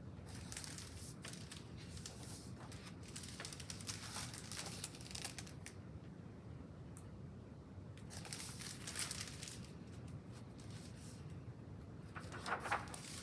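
Pages of a large picture book being handled and turned. The paper rustles in three spells: through the first five seconds or so, again around eight to nine seconds in, and most loudly near the end.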